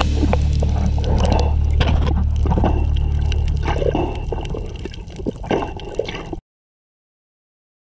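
Underwater sound from a camera in the sea: a muffled low hum with sloshing, bubbling and scattered clicks of water against the housing. It fades out and cuts to silence about six seconds in.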